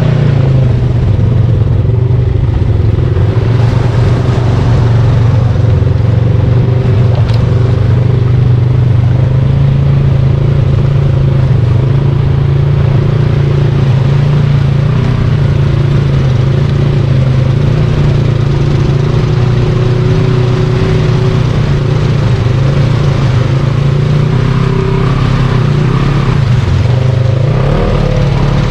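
Off-road vehicle engine running at a steady, even pace while riding a trail, with no sharp revving.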